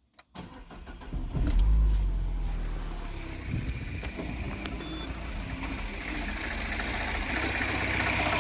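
Peugeot 1.6 THP four-cylinder turbo petrol engine with a new timing chain, cold-started after standing several days: a short crank, it catches about a second in, flares up and settles into idle. A faint mechanical rubbing and ticking goes with the cold idle, which the owner puts down to the cylinder head, not the chain.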